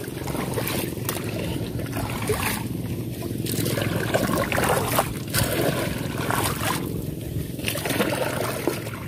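Water trickling and sloshing around a small boat moving on a pond, with scattered light knocks.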